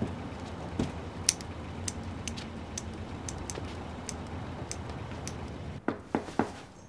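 Steady low street traffic rumble with a run of light, sharp clicks about every half second. Near the end the rumble drops away and a few soft knocks follow.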